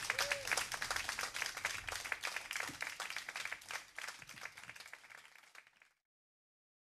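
Audience applause fading away, then cut off to silence about six seconds in.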